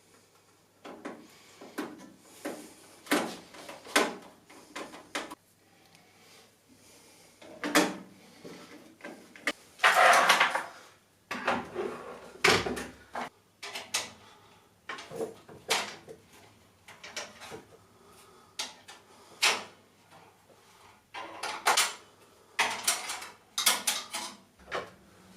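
Computer parts and cables being handled and fitted by hand: scattered sharp clicks and knocks, with a longer rustle about ten seconds in.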